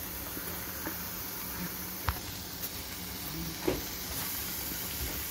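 Steady sizzling hiss of diced tomatoes, ground meat and green onions sautéing in a stainless steel skillet. Two sharp clicks of the spatula knocking the pan, about two seconds in and near four seconds.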